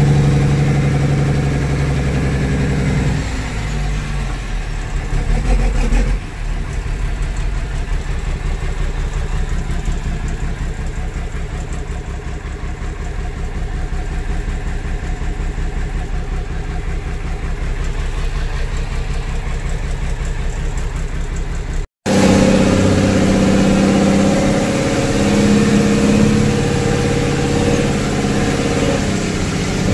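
Heavy truck's engine running under way, heard from inside the cab. The engine note rises and then drops about six seconds in. It cuts out for an instant about two-thirds of the way through and then carries on at a different pitch.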